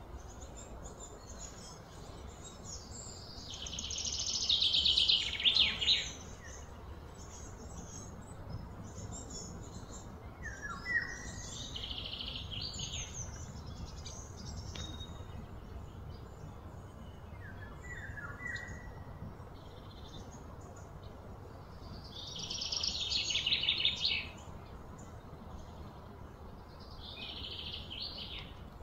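Outdoor ambience of wild animal calls: two loud, rapidly pulsing trills that each swell for about two seconds and cut off, a few quieter ones, and short bird chirps, over a low steady rumble.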